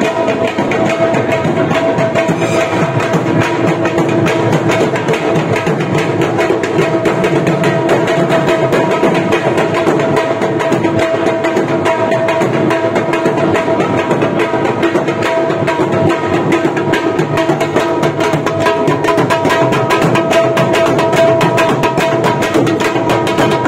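A large drum beaten rapidly and continuously with a wooden stick, with a steady high note held over the beat.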